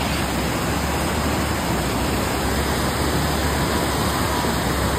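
Fast-flowing glacier-melt stream rushing at a water crossing: a steady, even rushing noise.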